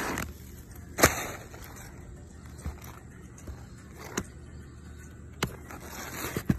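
Sharp knocks from a hand tool and shingles on an asphalt-shingle roof, the loudest about a second in and a few lighter ones spread out after it, with the scrape and rustle of a shingle being handled near the start and end.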